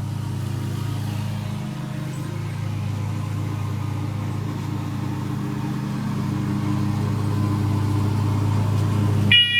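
A steady low hum with no clear source, slowly growing louder; near the end a smoke alarm's horn on test starts its first loud, shrill beep.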